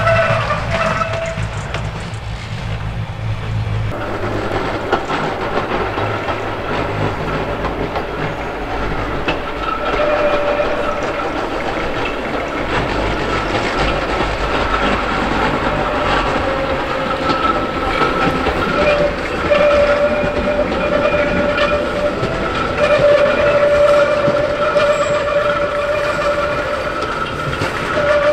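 Classic Bergbahn Lauterbrunnen–Mürren electric railcar running on the metre-gauge track: a steady rumble of wheels on rail with clacking, and from about ten seconds in a steady whine that grows somewhat louder as the railcar draws near.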